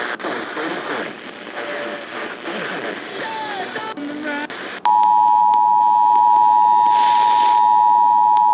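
Broadcast program audio with music. About five seconds in it gives way to the Emergency Alert System two-tone attention signal, a loud, steady pair of tones near 853 and 960 Hz that announces an alert, here a required monthly test.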